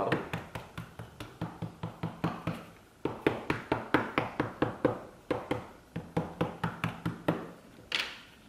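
Rapid light tapping on tightly packed corrugated cardboard strips, about four taps a second, packing them down into a box. There is a short pause about three seconds in, and one louder knock near the end.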